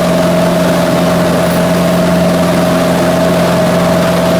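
1958 Cessna 182's six-cylinder piston engine and propeller in flight, a steady loud drone with wind noise, heard from the cabin.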